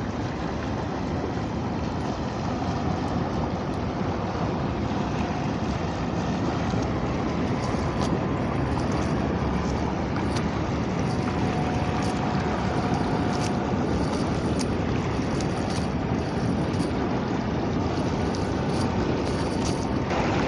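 Steady rushing noise of wind and small waves at the water's edge, with a few faint ticks in the second half.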